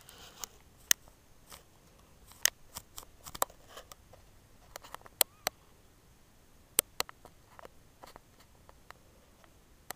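Scattered sharp clicks and ticks at irregular intervals, about a dozen, over a faint room background.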